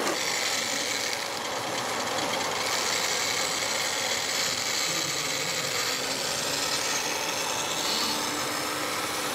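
Small electric motors and gearing of a radio-controlled model tractor and tipping trailer running, a steady whirring noise.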